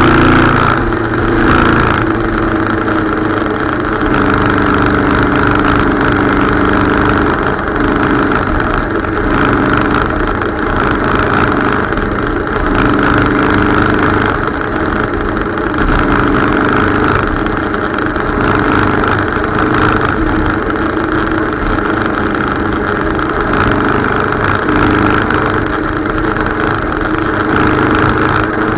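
Motorcycle engine running steadily while riding along at road speed, with a noisy haze under it.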